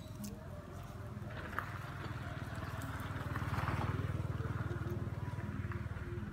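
A low engine rumble with a fast, even pulse that grows louder to a peak about halfway through and then eases off.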